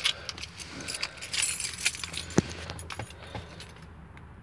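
A bunch of keys jangling and clinking, with a sharp click about two and a half seconds in.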